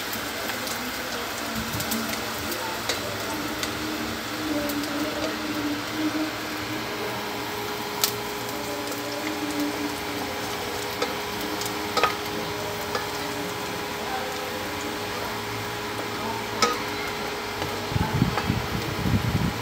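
Chopped garlic and onion sizzling in hot oil in a stainless steel pot, being sautéed and stirred with a wooden spatula that knocks sharply against the pot a few times.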